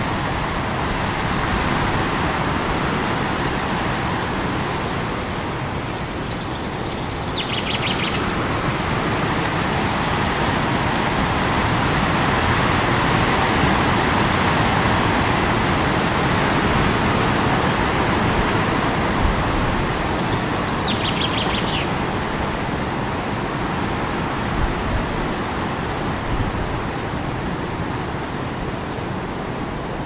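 Steady rushing wind, loud and even throughout. A short high bird call that drops in pitch cuts through it twice, about a quarter of the way in and again about two-thirds in.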